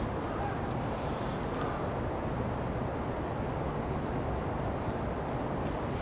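Steady outdoor background noise, mostly low rumble, with a faint click now and then.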